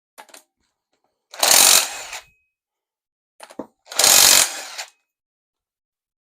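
Impact wrench hammering in two short bursts, each under a second, about 1.5 s and 4 s in, working a bolt loose through a ball-ended wobble extension.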